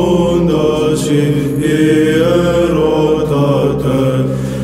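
Byzantine chant: a long melismatic vocal line that slides up and down over a steadily held drone (ison). Near the end a new syllable begins as the hymn moves on.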